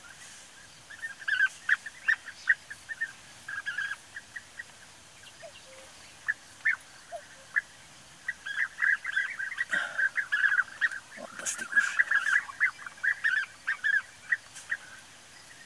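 A colony of European bee-eaters calling: many short, rolling calls in quick succession, growing busier and denser about halfway through. A few sharp clicks stand out near the middle.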